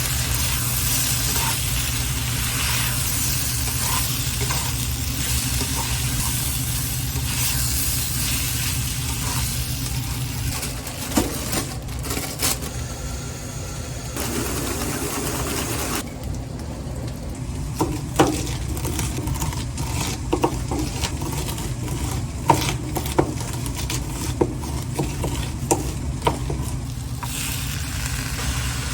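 Food sizzling in a hot pan as it is stirred. The sizzle thins out a little past halfway, and in the second half there are a number of sharp knocks of the utensil against the pan, all over a steady low hum.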